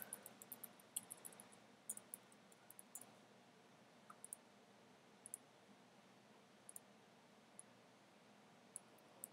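Faint, scattered clicks of a computer keyboard and mouse, coming in small irregular clusters with pauses between.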